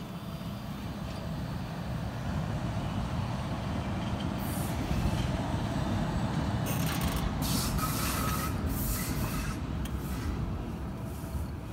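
Stadler ABe 4/12 three-car low-floor electric multiple unit passing on metre-gauge track. A low rumble of motors and wheels builds as it approaches, peaks with a run of brief hissing and clattering as the cars go by about five to ten seconds in, then eases as it pulls away.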